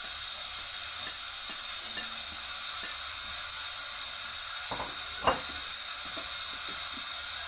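Chopped onions, garlic and small peppers sizzling in lard in a frying pan over medium heat, a steady hiss, while a slotted turner stirs and scrapes them with light taps on the pan. One sharper knock comes about five seconds in.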